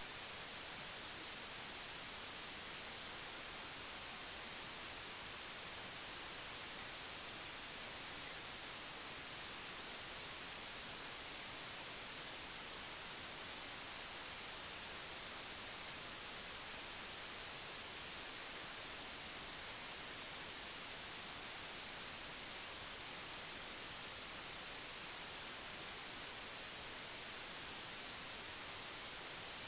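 Steady, even hiss of white noise that never changes, with no other sound standing out.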